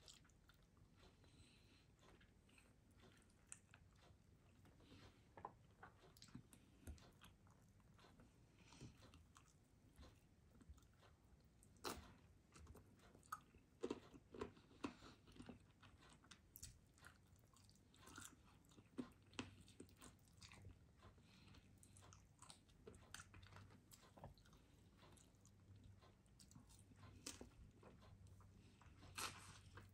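A person eating baked chicken and rice: faint chewing with scattered sharp clicks and taps. The loudest cluster comes about halfway through, while a fork works at the chicken on the plate.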